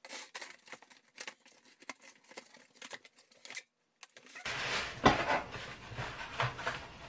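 Scissors slicing along packing tape on a cardboard shipping box, a run of faint crackling clicks; then, about four and a half seconds in, louder rustling and knocking of cardboard flaps and plastic packaging as the box is unpacked.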